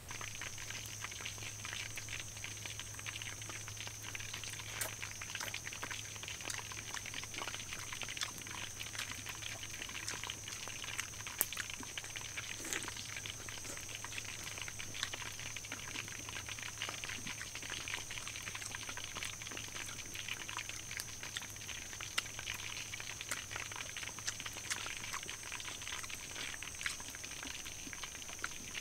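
Dense, steady crackling from a wood cooking fire and the wok heating over it, over a steady high-pitched drone.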